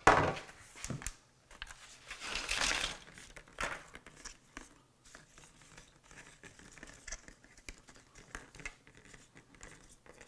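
Crinkling of thin plastic packaging with light scattered clicks as mini phyllo cups are lifted out of their plastic tray and set on a metal sheet pan, after a sharp knock at the start as the pan is put down on the counter.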